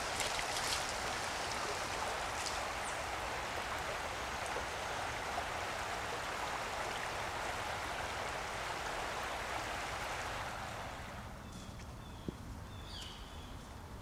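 Shallow rocky creek running steadily, with a few splashes in the first second as water is scooped up in the hands. About ten and a half seconds in the water noise falls away to quieter woodland, with a few short high chirps and a single click.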